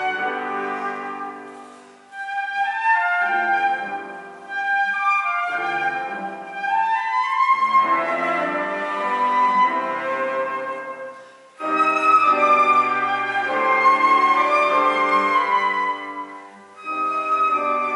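Trio of flute, cello and grand piano playing classical chamber music, in phrases with a few brief near-pauses between them.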